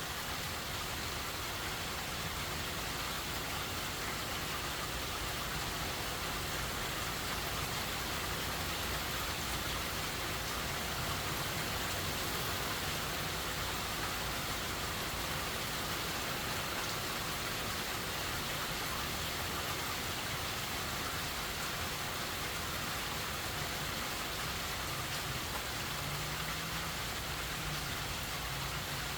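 Steady rain falling, an even, unbroken hiss of rain without let-up.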